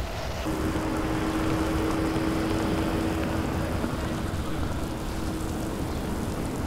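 Water spraying from a hose-fed ground sprinkler nozzle and pattering onto wet cobblestones, a steady rain-like hiss. A steady tone of unknown source sounds through most of it, starting about half a second in.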